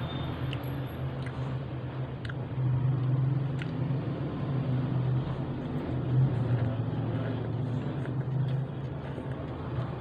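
A steady low background rumble that runs throughout, with a few faint soft clicks of a person chewing a soft bun burger.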